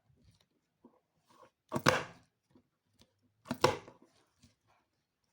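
Two short, sharp knocks about two seconds apart, each a quick double clack.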